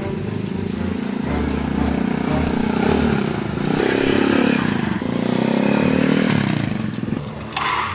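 A vehicle engine running, its pitch rising and falling twice as it revs up and eases off, then cutting off near the end.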